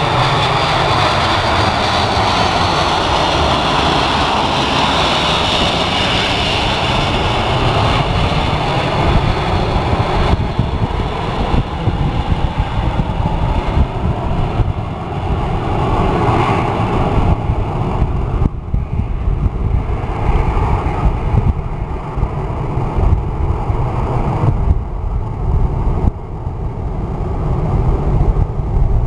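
Boeing 737-800 jet engines on landing approach passing low overhead. Several engine tones fall in pitch as the airliner goes by, leaving a dull, fluttering rumble as it moves away.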